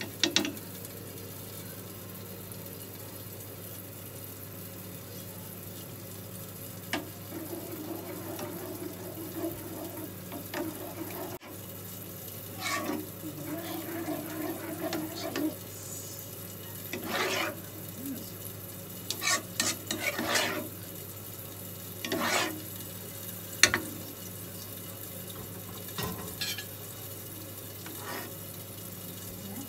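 Metal ladle stirring thick white sauce with melting cheese in a nonstick frying pan, in intermittent bouts of scraping and clatter against the pan over a steady low hum. One sharp tap of the ladle on the pan about two-thirds of the way through is the loudest sound.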